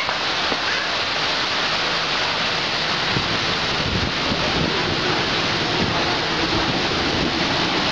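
Heavy rain pouring down steadily. From about halfway, a diesel passenger train's low rumble and hum build underneath the rain as it runs in alongside the platform.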